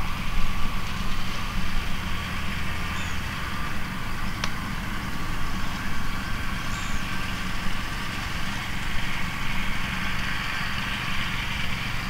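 Steady outdoor background noise: a low, continuous rumble under an even hiss, with one short tick about four seconds in.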